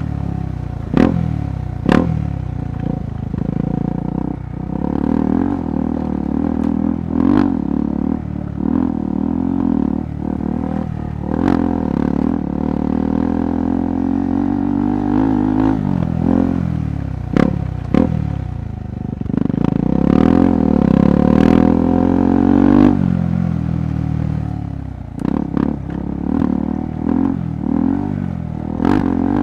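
KTM 390 Adventure Rally's single-cylinder engine pulling and easing off over rough off-road trail, its pitch rising and falling, with a longer, louder rev from about two-thirds of the way in that drops off sharply. Frequent short knocks and clatter are heard throughout.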